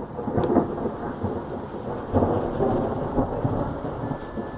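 Thunder rumbling from a thunderstorm, with a sharp crack about half a second in and a fresh swell of rumble about two seconds in.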